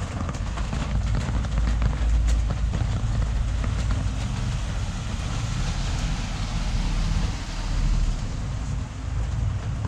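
Rainy street ambience: an even hiss of falling rain with faint scattered drop ticks over a steady low rumble.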